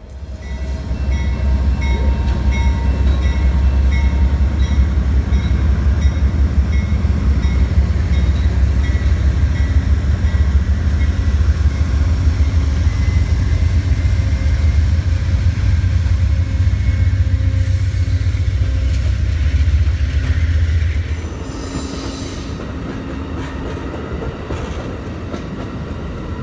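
Amtrak Silver Star passenger train pulling out, led by its diesel locomotive. A deep, steady engine rumble builds within the first second and holds for about twenty seconds, then drops off suddenly as the locomotive passes. The quieter rolling of the passenger cars carries on after it.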